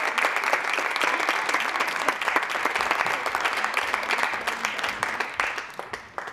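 Audience applauding at the end of a performance, the clapping thinning out and dying away near the end.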